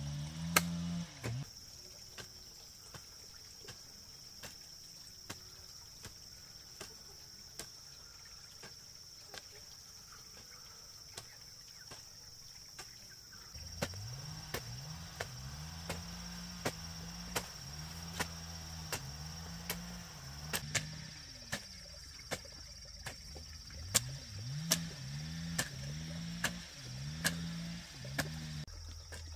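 A garden hoe chopping into dry soil in even, repeated strikes, a little more than one a second, over a steady high insect buzz. From about halfway through, a series of low, short pitched notes comes in alongside the strikes.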